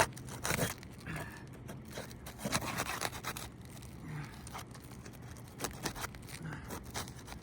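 Scraping and irregular sharp clicks as old, brittle asphalt shingles are pried up and their laminate strips lifted off the roof.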